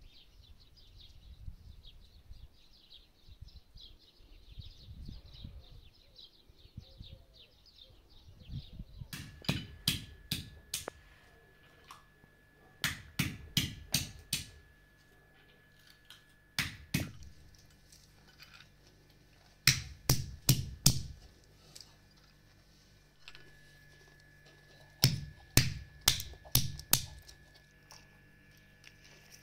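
Faint, rapid bird chirping for the first eight seconds or so. Then walnuts are cracked with a hand-held stone, in five clusters of sharp knocks, a few strikes each.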